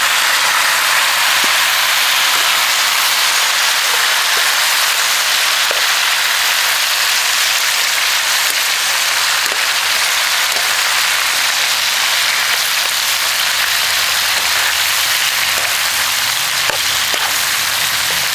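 Iguana meat and freshly added tomato, onion and sweet pepper sizzling loudly in hot oil in a frying pan, a steady hiss, with a fork stirring and clicking against the pan now and then.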